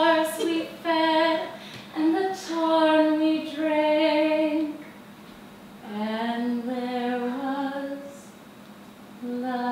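A woman's voice singing a slow melody without accompaniment, in long held notes. She pauses around five seconds in, then goes on with a lower phrase.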